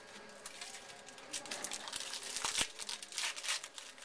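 Baseball trading cards and their pack wrapper being handled, crinkling and rustling in a quick run of scratchy sounds that builds up about a second in and is loudest in the second half.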